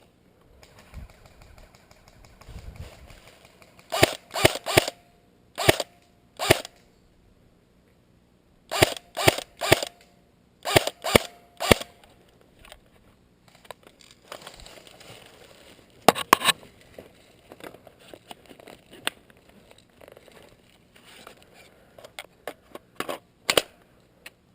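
Airsoft rifle shots, sharp and close, fired in quick groups of three or four with single shots between and a few more spread out later.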